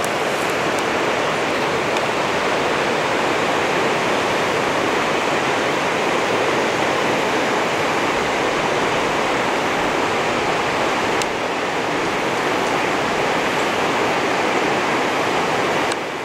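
Steady rushing of a river flowing through a rocky gorge, with a brief dip in level about eleven seconds in.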